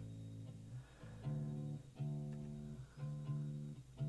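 A recorded bass guitar track playing on its own through the mixer channel, fairly quiet: sustained plucked notes, a new one about once a second. It has a lot of high end for a bass.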